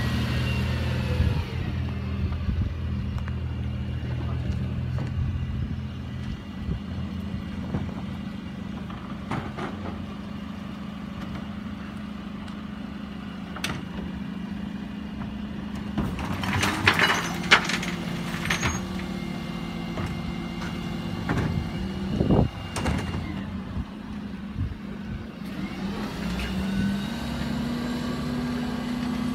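Rear-loading refuse truck engine running steadily while the crew empties wheelie bins. About halfway through there is a cluster of loud clattering knocks, and near the end the engine pitch rises as the truck pulls away.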